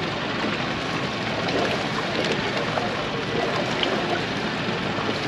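Boat under way at sea: a steady wash of engine, water and wind noise.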